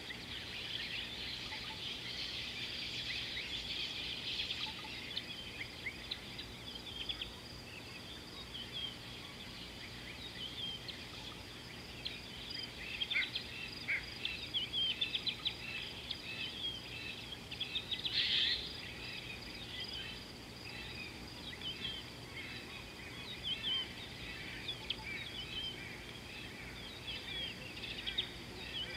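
Several birds chirping and calling in short, overlapping notes, with a brief louder flurry of calls a little past the middle, over a steady high-pitched drone.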